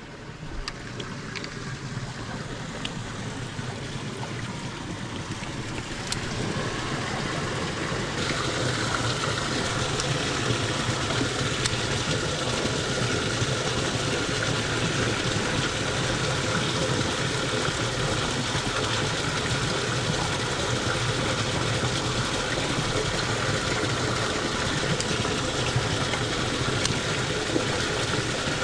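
Steady rush of water flowing down a concrete irrigation channel, growing louder over the first several seconds and then holding steady.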